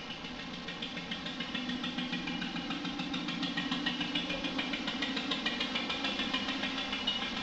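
Boat engine idling with a steady, even chugging pulse, a sound effect opening the song's backing track.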